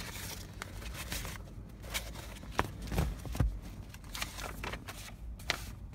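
Rustling and handling of a paper document pack, with several scattered light clicks and knocks.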